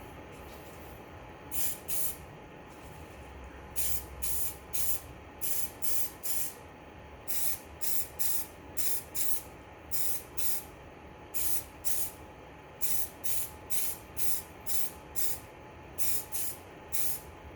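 Aerosol can of clear coat sprayed in short, quick bursts of hiss, about two a second in runs with brief pauses between, laying the clear coat over the painted door handle.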